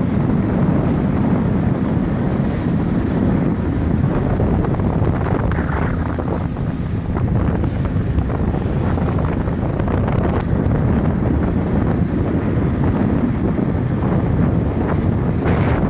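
Wind buffeting the microphone, a steady low rumble of noise.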